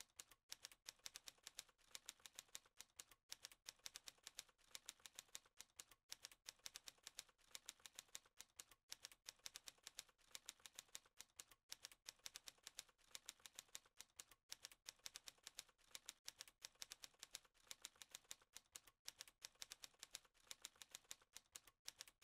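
Faint typing sound effect: a rapid, even run of typewriter-style key clicks that accompanies the text as it types itself out.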